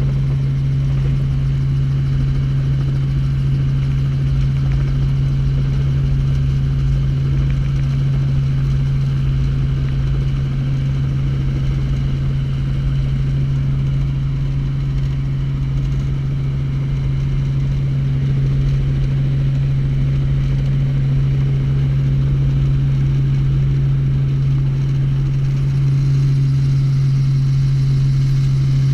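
Helicopter engine and main rotor running at a steady pitch, heard from inside the cabin as a loud, even low drone.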